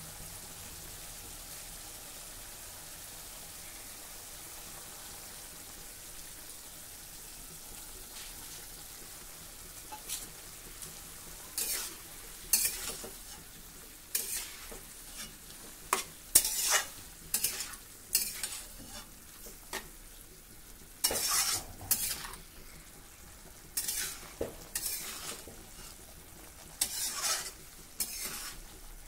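Bottle gourd stems and pieces sizzling steadily in a wok. From about ten seconds in, a spatula stirs them, scraping against the wok in repeated irregular strokes.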